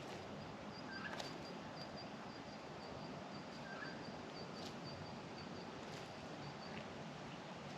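Australian magpies foraging in turned-over hay: scattered light taps and clicks with a couple of brief chirps. A faint, high, rapidly pulsing trill runs under them from about a second in until near the end.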